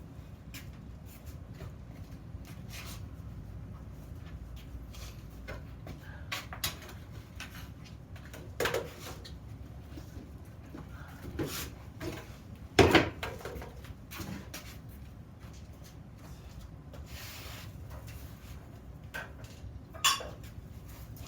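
Separate knocks and clanks of steel parts being handled and set down on a workbench, the loudest about two-thirds of the way through, over a low steady hum.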